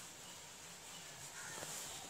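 A bird calls once in the background about one and a half seconds in, over a faint steady hiss.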